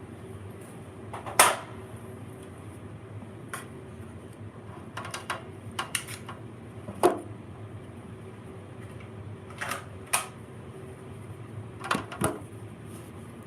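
Irregular sharp clicks and knocks, about a dozen, the loudest about a second and a half in, over a steady low electrical hum.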